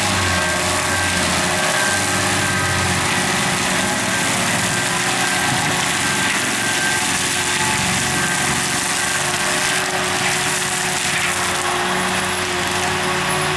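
Barko 930 forestry mulcher running at working speed, its Fecon mulching head's rotor grinding brush and wood debris at ground level. A loud, steady grinding noise with the engine's steady drone under it.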